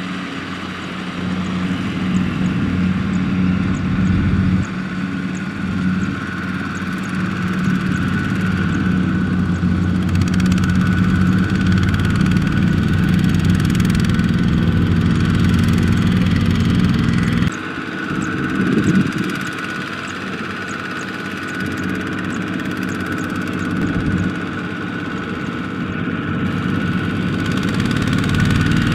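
Kubota RT120 power tiller's single-cylinder diesel engine running under load as the walk-behind tractor pulls its trailer through mud, with a steady high whine alongside; the engine note shifts abruptly a few times.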